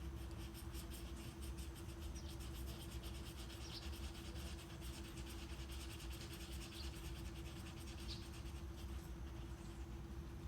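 Steady low brown noise under a nature soundscape: a fast, even insect-like pulsing trill through most of it, with a few short, high, falling bird chirps. A steady hum runs underneath.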